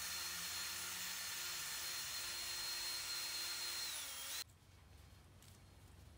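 Cordless drill running steadily at speed with a high whine, then dipping in pitch as it winds down and stopping about four seconds in.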